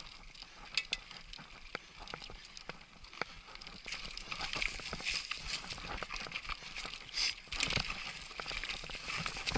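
Trek Superfly mountain bike rolling over a loose, rocky trail: tyres crunching on stones, with many sharp clicks and knocks as the bike rattles over the rocks.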